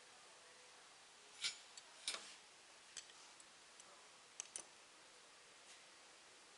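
Near-silent room with a few sharp clicks and light knocks from a metal glue spray gun and its air hoses being handled and set down on the machine's conveyor belt; the two loudest come about a second and a half and two seconds in, and a quick pair follows near the end.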